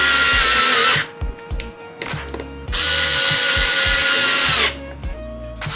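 Meterk cordless electric screwdriver running in two bursts of about two seconds each as it turns hex-socket bolts in a metal bracket: a steady motor whine whose pitch sags slightly as the first burst ends about a second in.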